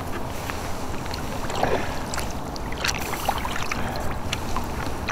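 Water slapping and splashing against a kayak's hull as a hooked musky tows it along, with irregular small splashes over a low wind rumble on the microphone.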